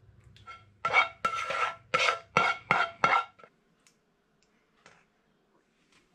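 A serving spoon scraping thick tomato sauce out of a frying pan: about six quick scrapes over two and a half seconds, with a faint ringing from the pan. It then goes quiet apart from a few small clicks.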